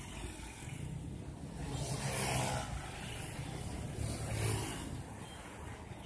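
Mercedes-Benz coach's diesel engine running as the bus rolls slowly past at close range, its rumble swelling twice, about two seconds in and again near four and a half seconds.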